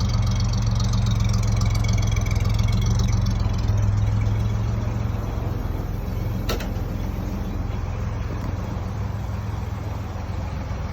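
1950 Chevrolet truck's engine idling steadily, with a single sharp click about six and a half seconds in.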